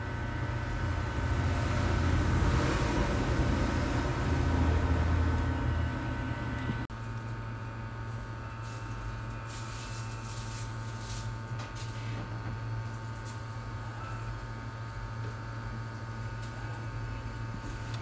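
Steady electrical hum with a rumbling background noise that is louder for the first six seconds, drops abruptly about seven seconds in, and then goes on more quietly with a few faint clicks.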